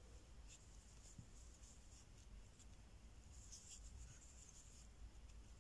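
Near silence with faint, brief scratching of a crochet hook drawing yarn through stitches as single crochet is worked.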